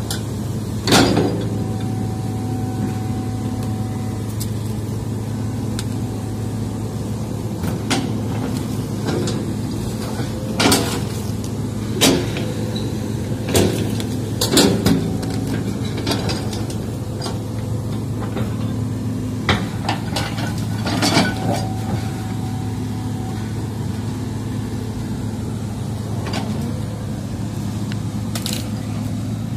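Crawler excavator's diesel engine running steadily while the bucket digs into soil and brush. About ten sharp knocks and clanks from the bucket and arm are scattered through it.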